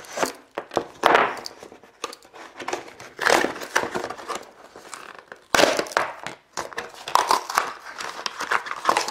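Paper-card and clear plastic blister packaging being cut, torn and pulled apart by hand: irregular crinkling and tearing.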